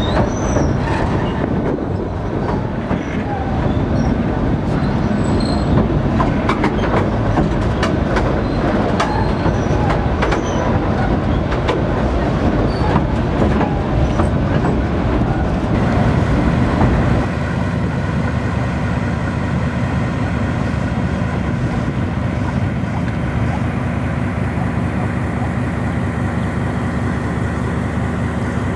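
Passenger train running over a steel trestle viaduct: a loud rumble of the carriage wheels with many rail clicks and clatter. About two-thirds of the way through, this gives way abruptly to a steadier, quieter hum with a steady low tone.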